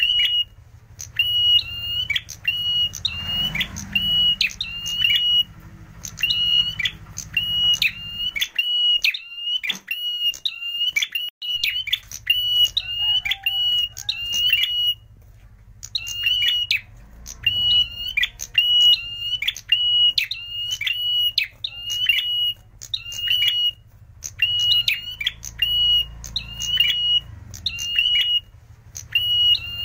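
A caged prenjak merah calling loudly: a high, piercing note repeated about twice a second in long runs, with brief breaks about a third of the way in and about halfway.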